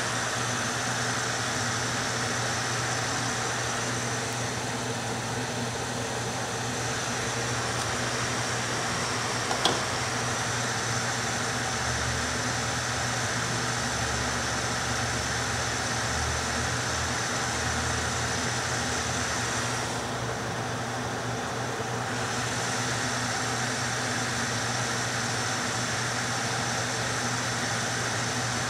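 Steady whir of a small fan moving air through a foil-wrapped 3-inch dryer duct, with a low steady hum under it. A faint click about ten seconds in.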